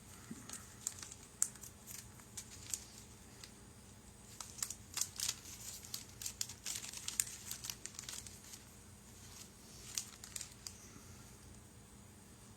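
Small plastic parts bags crinkling and rustling as they are handled and opened, in irregular bursts of crackles that thin out near the end.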